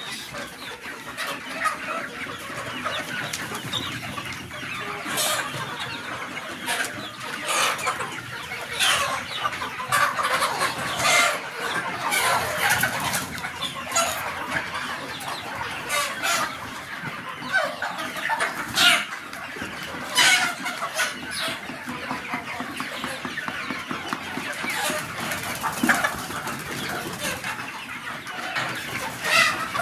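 A flock of desi chickens clucking, with many short calls overlapping one another.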